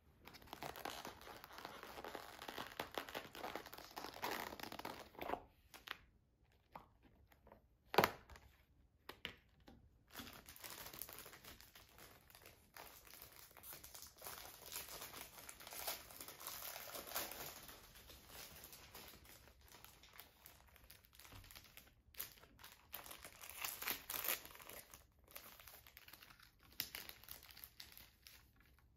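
Crinkling and rustling of thin plastic food packaging being handled and opened, in stretches with short pauses, with one sharp snap about eight seconds in.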